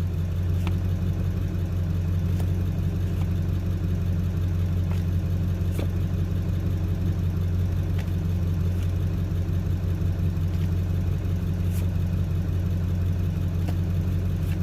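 A steady low drone, with light clicks every second or two as trading cards are slid one behind another through an opened pack.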